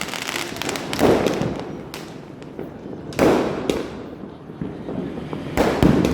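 Firecrackers going off: about five sharp bangs, each echoing away, two of them close together near the end, with small crackling pops in between.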